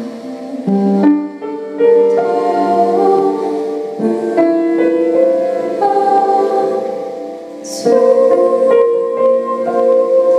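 Solo piano with a woman singing long held notes, a slow song with a Japanese traditional feel. New chords and notes sound about every second.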